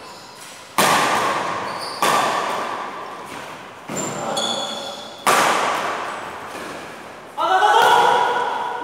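Badminton rackets striking the shuttlecock in a doubles rally: four sharp smacks a second or two apart, each echoing in a large hall. A player shouts near the end.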